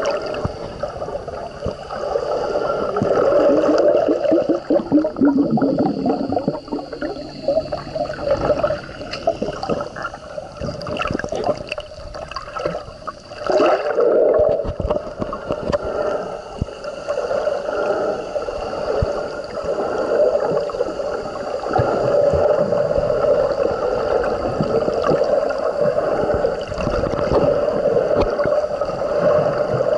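Muffled underwater water noise picked up by a submerged camera while snorkeling: continuous gurgling and sloshing, steady throughout apart from a short lull about thirteen seconds in.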